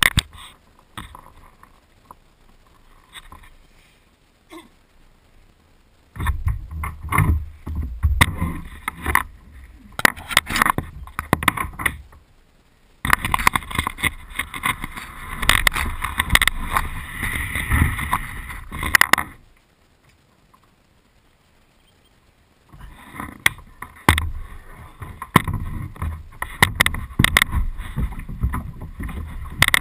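Knocks, bumps and scrapes on a plastic kayak hull, with rumbling handling noise, picked up through the hull by a camera mounted on the bow deck as the kayak is handled and climbed into. The sound comes in several loud stretches separated by quiet gaps.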